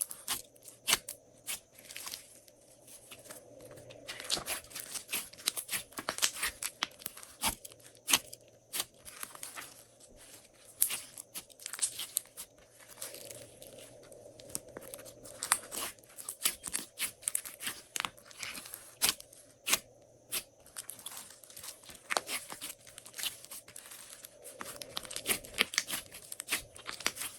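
Glossy slime being kneaded and stretched: irregular sticky clicks and pops, with short stretches of crackling.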